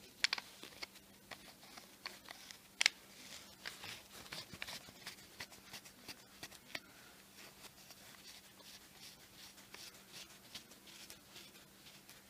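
Fingers turning the knurled cap on the CO2 tube of a Crosman E9A .22 CO2 pistol, screwing it onto the threaded tube end: small clicks and scratchy rubbing, with a few sharper clicks in the first three seconds.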